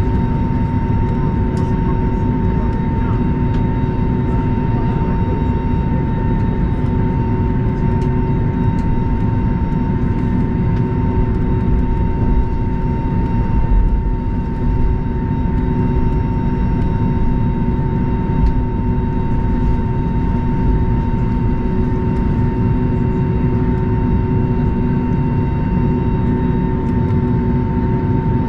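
Steady cabin noise inside an Airbus A320neo on the ground after landing: a continuous low rumble with a constant high whine over it.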